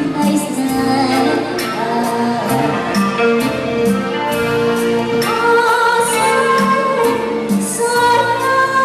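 A woman singing over backing music with a steady beat.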